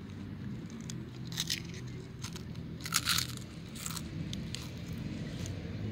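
A few short crackly crinkles and crunches from a toddler eating crisps out of a foil crisp packet, over a low steady hum.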